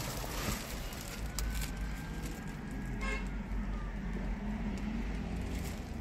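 Steady low rumble of vehicle traffic, with a short toot about three seconds in.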